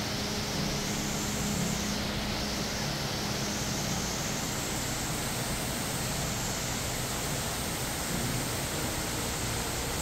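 Steady rushing of water from an indoor artificial waterfall cascading down faux rockwork, an even hiss with no breaks.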